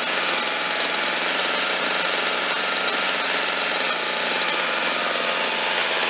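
Craftsman snowblower's two-stroke engine screaming at high speed, a loud, steady running sound.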